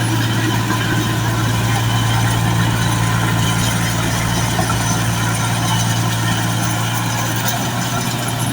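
Heavy engine running steadily at an even low pitch, as if idling, with no change in speed.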